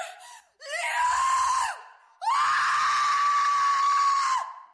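A woman screaming: a short scream, then, about two seconds in, a long scream held at one high pitch that stops shortly before the end.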